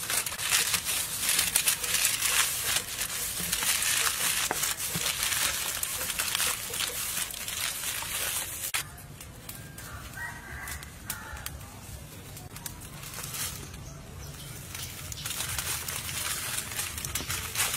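Aluminium foil crinkling and crackling as it is scrunched and folded by hand around a whole chicken, dense for about the first nine seconds and then stopping suddenly; the rest is much quieter.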